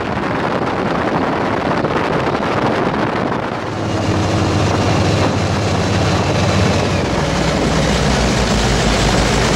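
Wind buffeting the microphone and rushing water on a powerboat under way. About four seconds in, the sound changes to the steady drone of an offshore powerboat's twin 1,000 hp engines at high speed, heard from on board, under heavy wind noise and the hiss of spray.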